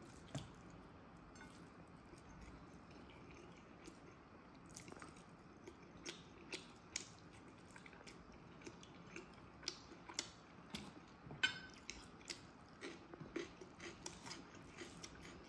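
Close-miked eating sounds of a person eating biryani rice and chicken curry by hand: quiet chewing, then a scattering of short wet mouth clicks that come more often from about five seconds in, with one sharper click a little past the middle.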